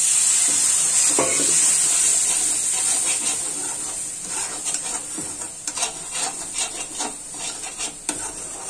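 Loud sizzling as water hits the hot oil and onion masala in a steel kadai, the water added to keep the masala from burning; the hiss eases after about three seconds. A spatula scrapes and stirs against the pan, more often in the second half.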